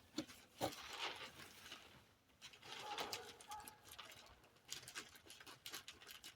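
Irregular clicks, taps and rustling as plastic spring clamps and plastic sheeting are handled, with a brief faint squeak about three seconds in.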